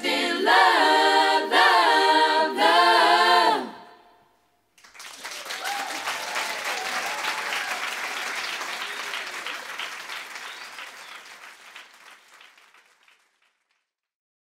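A female a cappella choir sings the closing phrases of a song in close harmony, three short sung phrases that end a little under four seconds in. After a brief pause an audience applauds, and the applause fades away near the end.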